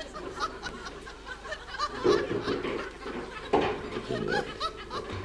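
A woman's stifled laughter behind her hand: short snickers and giggles in broken bursts, strongest about two seconds in and again after three and a half seconds.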